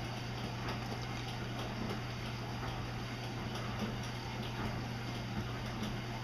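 Cat lapping water from the open neck of a plastic water dispenser jug: a run of small, rhythmic wet ticks, over a steady low hum.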